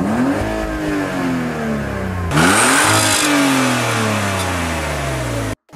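Car engine revved twice: each time the pitch jumps up quickly and then slowly falls away. The second rev is louder, with more exhaust hiss, and the sound cuts off suddenly near the end.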